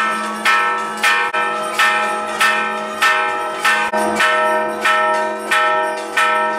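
Temple bell struck over and over in a steady rhythm, a little under two strikes a second, each strike ringing on into the next.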